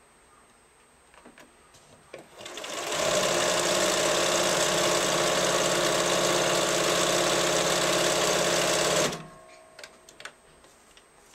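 Bernina 1090 electronic sewing machine (Riccar-badged) stitching at a steady speed for about six seconds: it speeds up over about half a second, runs evenly, then stops suddenly. A few light clicks come before it starts and just after it stops.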